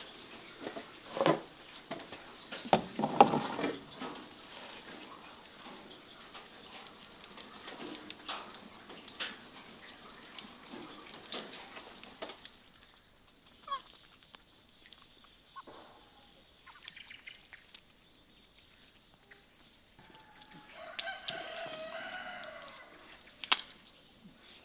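Chickens clucking, with a rooster crowing once near the end in a single held call that falls slightly in pitch, among scattered small clicks and knocks.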